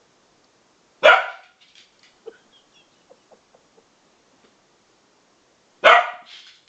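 Bedlington terrier barking in play: two sharp, loud barks about five seconds apart, one a second in and one near the end, with faint small taps between.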